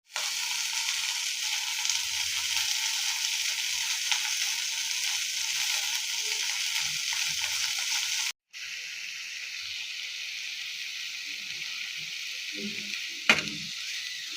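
Green chillies frying in hot oil, a steady sizzle. It cuts out for a moment about eight seconds in and resumes a little quieter, with a sharp knock near the end.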